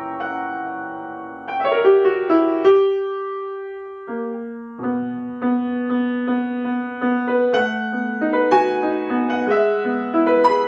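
Solo piano playing a slow classical piece. It sounds a held chord, struck notes leading to a long sustained note, then from about five seconds in a melody over steadily repeated notes in the lower voice.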